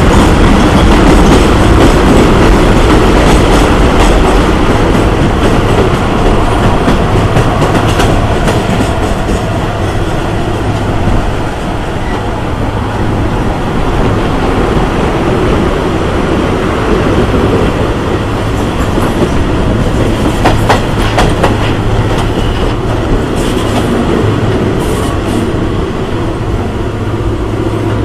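El Chepe passenger train running on its rails, heard from aboard: a loud, steady rumble of wheels and cars with scattered sharp clicks. It passes through a tunnel and out into the open, and grows a little quieter after about ten seconds.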